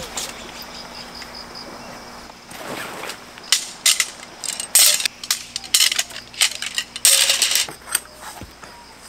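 Camping tent being taken down: its poles click and clack as they are handled and folded, with bursts of rustling from the tent fabric. This is mostly from about three and a half seconds in, the loudest bursts near the middle and near the end.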